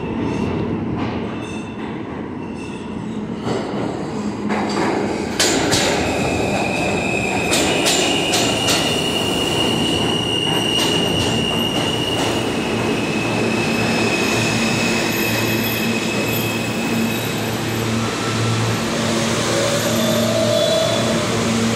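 R160 subway train pulling into an underground station: its wheels clack over the rail joints as it comes in, then a long, steady, high-pitched wheel squeal sets in as it slows to a stop.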